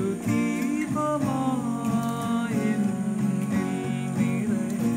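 Acoustic guitar being played, chords struck in a steady rhythm.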